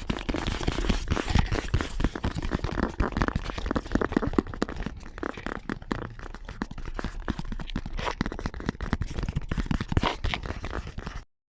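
ASMR tapping and crinkly scratching, several takes layered over one another into a dense, fast patter of small taps. It cuts off suddenly near the end.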